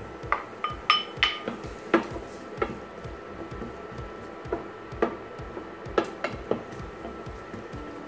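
A ceramic bowl clinking against a frying pan as diced carrots are tipped in, then a wooden spoon knocking and scraping in the pan while stirring the carrots in oil: irregular sharp clicks and knocks, the first few with a short ringing tone.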